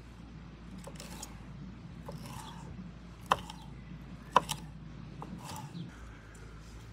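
Knife slicing a green bell pepper on a wooden cutting board, with sharp knocks as the blade strikes the board, the two loudest a little over three and a little over four seconds in.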